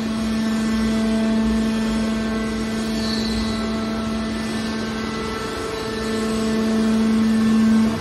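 Hydraulic power unit of a scrap-metal baler running with a steady hum, growing louder over the last two seconds and dropping off abruptly at the end.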